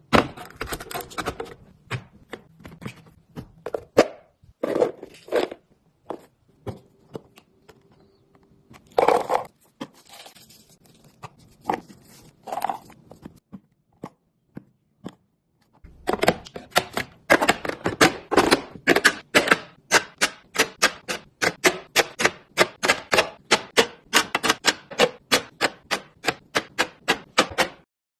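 Plastic storage boxes and food packages being handled and set down in a refrigerator: scattered clicks, knocks and a short rustle. Near the end comes a long run of quick clicks, several a second.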